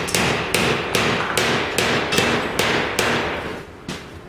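Hammer blows on car-body sheet metal in a steady run, about two and a half strikes a second, each with a short metallic ring. The blows thin out and fade near the end.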